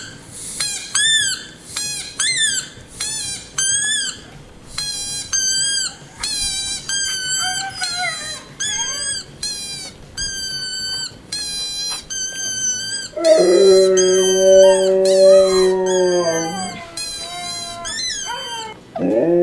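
Recorded Siberian husky howling played back through a speaker: a long string of short, high-pitched cries that rise and fall. About 13 seconds in, a live Siberian husky joins with a louder, much deeper howl held for about three seconds before it drops away, and starts another howl at the very end.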